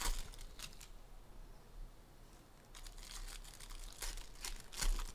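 Crinkling and tearing of the plastic wrapper on a trading card pack being opened by hand. It comes in two spells of crackly rustling with a quieter gap, and the loudest crinkle comes near the end.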